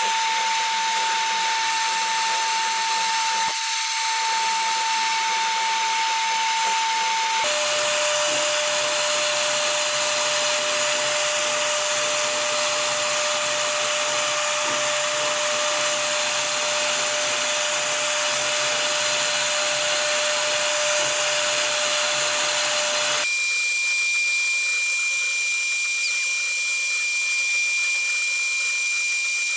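HTM1325 CNC router spindle carving a 3D relief into an MDF panel: a steady whine over the hiss of the cutting bit. The whine jumps abruptly to a different steady pitch twice, about 7 and 23 seconds in.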